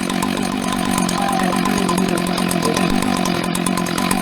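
Husqvarna 2100CD two-stroke chainsaw, fitted with a Husqvarna 395 carburettor, running steadily.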